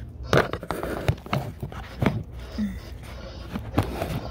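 Scattered bumps and knocks of a phone being handled and moved around close to the body, with a brief low hum of a voice about two and a half seconds in.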